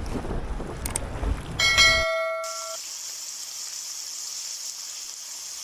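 Wind buffeting the microphone over water, cut off about two seconds in. A short bell-like chime rings about a second and a half in, and a steady high hiss follows it.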